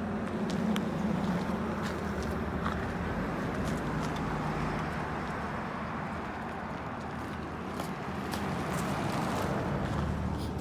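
Road vehicle noise: a steady low engine hum that swells and eases a couple of times.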